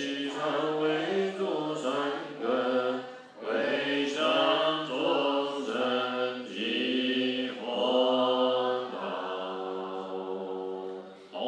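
A man's voice chanting a Buddhist mantra in a slow melody, holding long notes that step from pitch to pitch, with short breaths between phrases.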